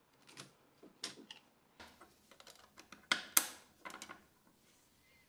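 Hard PLA 3D-printed lens spanners clicking and knocking as they are handled: pried off a printer bed, then set down on a wooden desk and fitted against a camera lens. Irregular light clicks, with two sharp knocks a little past the middle being the loudest.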